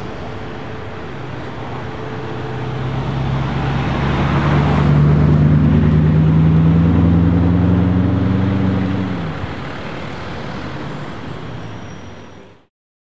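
Bugatti Chiron Pur Sport's quad-turbo W16 engine running at low revs as the car drives past. It grows louder through the middle as it passes, then fades as it pulls away, and the sound cuts off abruptly just before the end.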